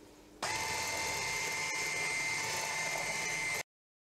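Electric hand mixer starting about half a second in and running at a steady speed, its beaters whisking flour into a thin cake batter: a steady motor whine that stops abruptly near the end.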